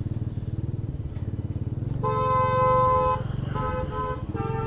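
A vehicle horn honks over a scooter's small engine running: one long blast about two seconds in, then several short toots near the end.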